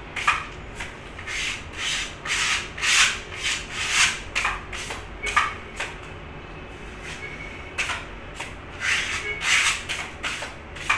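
Sandpaper rubbed by hand over a dried putty patch on a plastered wall, in short back-and-forth scratchy strokes, with a pause of a couple of seconds about halfway through.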